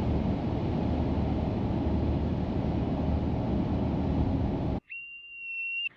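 Steady rumbling noise that cuts off suddenly near the end, followed by a single steady high whistle tone lasting about a second.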